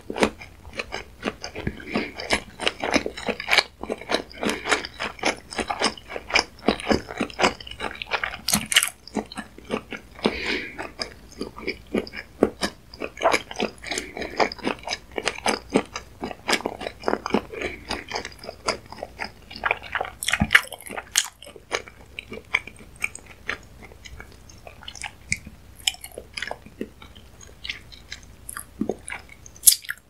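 Close-miked mouth chewing a mouthful of fish roe, a dense run of small wet pops and clicks as the eggs burst between the teeth, with a few louder snaps.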